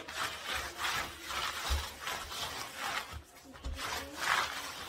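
A cloth rubbed back and forth over a synthetic tent floor in repeated, uneven scrubbing strokes, wiping off sand and dust, with the fabric crinkling and a few soft thumps on the floor.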